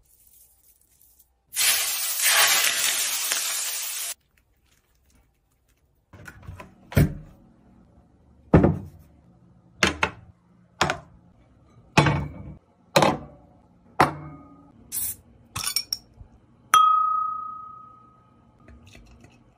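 Hot oil poured over chili flakes and garlic heaped on boiled beef, sizzling loudly for about two and a half seconds and cutting off suddenly. Then about ten clinks and knocks of dishes and tableware being set down, and near the end a glass giving one clear ringing tone that fades.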